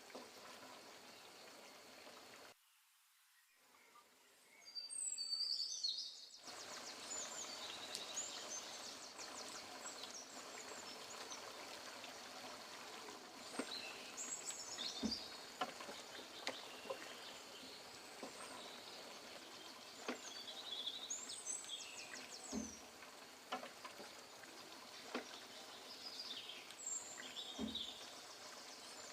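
Birds chirping and trilling over a faint steady background hiss, with a few soft knocks.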